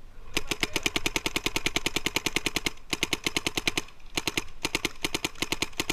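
Electronic paintball marker, a Planet Eclipse Etek 5, firing rapid strings of shots at about a dozen a second. It fires in several bursts, with short breaks about three and four seconds in.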